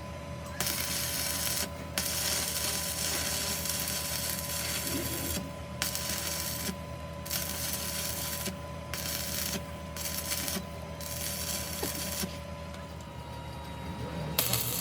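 A harsh hissing noise from metalworking that stops and starts about six times before cutting out near the end, over a steady machine hum.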